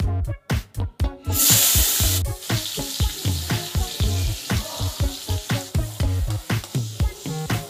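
Chopped onion, tomato and green chilli hit hot oil in a kadai with a loud burst of sizzling about a second in. They go on sizzling as a spatula stirs them, over background music with a steady beat.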